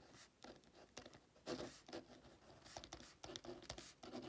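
Faint scratching of a pen writing by hand on paper, in short irregular strokes.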